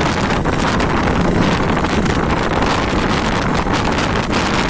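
Loud, steady wind buffeting the microphone of a camera carried on a moving motorcycle, with motorcycle engine noise mixed in.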